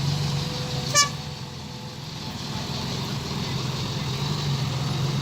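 A heavy vehicle's engine running steadily, with one short horn toot about a second in; the engine drops briefly after the toot, then builds back up.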